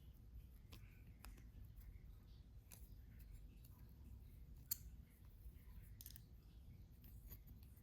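Faint clicks and ticks of thin jewelry wire and small hand tools being handled, with one sharper click about halfway through.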